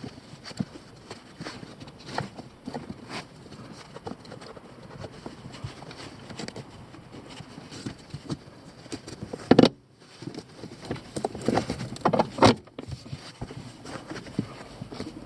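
Irregular clicks, clinks and knocks of hard objects, with two loud knocks about ten and twelve seconds in.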